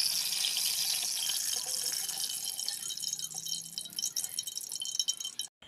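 Batter-coated ridge gourd fritters deep-frying in hot oil in a karahi: a steady sizzle with crackling pops. It slowly gets quieter and cuts off briefly near the end.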